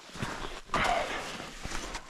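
Footsteps in snow: a light step near the start, then a louder step about three quarters of a second in that lasts about half a second.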